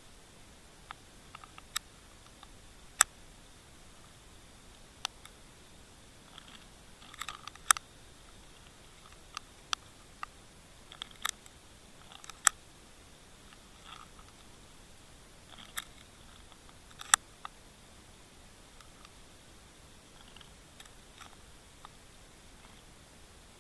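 Sharp, irregular clicks and snaps, a few of them loud, about one every second or two, over a steady faint hiss, heard underwater.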